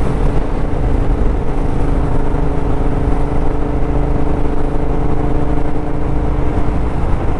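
Royal Enfield Interceptor's parallel-twin engine, big-bored to 865cc with high-flow headers and mufflers, running at steady revs while cruising in sixth gear, with a low wind rumble underneath.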